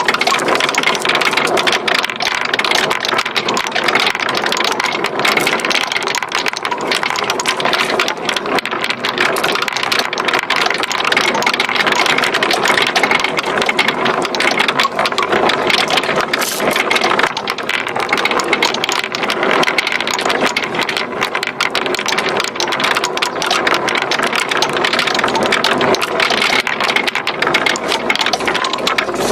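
Many glass marbles rolling and clattering down a wooden zigzag slope marble run, a continuous dense rattle of small clicks.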